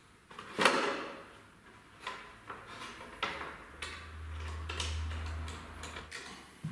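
Handling clicks and knocks as a front fender is fitted between a scooter's fork legs, with a tool tapping against it. The loudest knock comes about half a second in, and smaller clicks follow every second or so. A low hum sounds for about two seconds in the middle.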